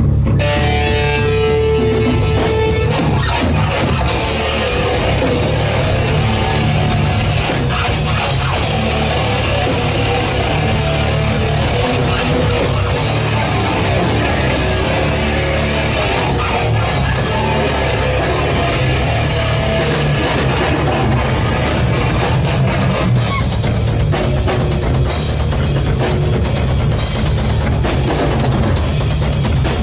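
A rock band playing live, loud and heavy, with electric guitar and drum kit. It opens on a held guitar note, and the full band with cymbals comes in about four seconds in.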